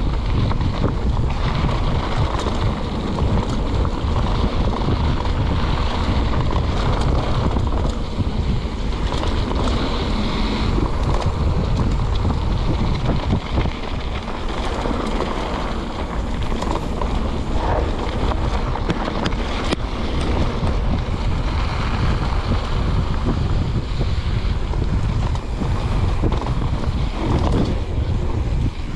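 Wind rushing over the camera's microphone as a mountain bike rolls fast along a dirt trail, a loud, steady rumble with the rattle of the tyres and bike underneath.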